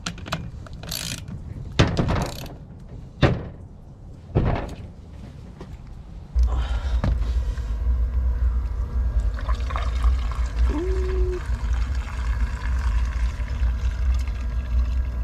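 A few handling clicks and knocks, then from about six seconds in a steady pouring as old fuel is drained out of the Husqvarna 55 Rancher chainsaw's tank.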